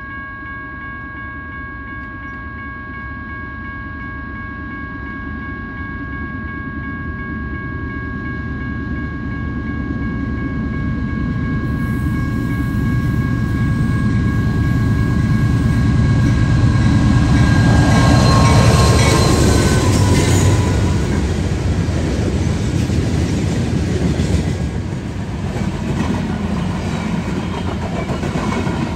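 Diesel-hauled freight train approaching and passing: a low rumble grows steadily louder with a steady high whine over it. The whine drops in pitch as the locomotive goes by, about two-thirds of the way in. The freight cars then roll past with clicking wheels.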